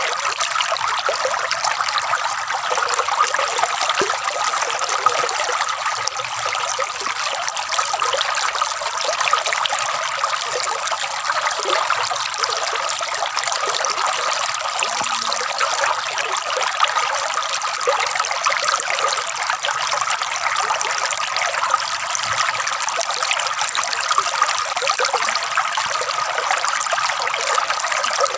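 Water trickling and gurgling steadily, a dense patter of small splashes with no break or change.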